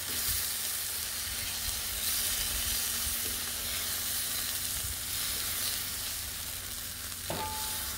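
Tri-tip steaks sizzling on a hot steel flat-top griddle as they are seared and turned, a steady frying hiss. This is the final high-heat sear of a reverse sear.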